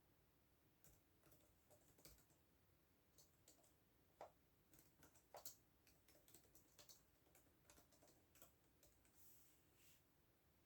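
Quiet computer keyboard typing: irregular key clicks several a second, with a few louder keystrokes about halfway through.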